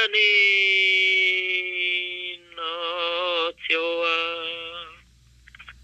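A solo voice singing an Iu Mien song unaccompanied: three long held notes with a wavering pitch, the last fading out near the end.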